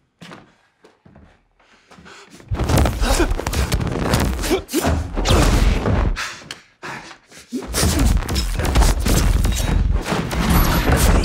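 Film sound design for personal body shields in a knife fight: a dense swarm of crackling clicks over a deep rumble, made by granular synthesis of a purring sound, with thuds of the fighters colliding. Fairly quiet for the first couple of seconds, then two long loud stretches with a short lull about seven seconds in.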